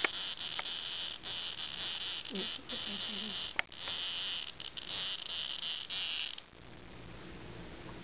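A cicada giving its high-pitched buzzing distress call while being handled, with a few brief breaks, cutting off suddenly about six seconds in.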